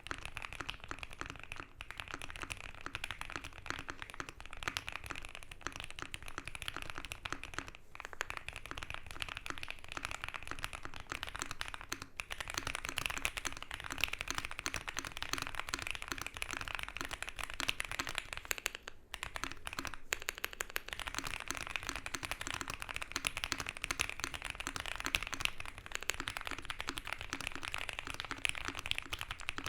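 Continuous typing on a custom TKL mechanical keyboard with a polycarbonate plate and GMK keycaps. The sound is a dense stream of key clacks. The linear OP Black switches give way after a brief pause to Pewter switches about a third of the way in, and MX Brown switches come in near the end.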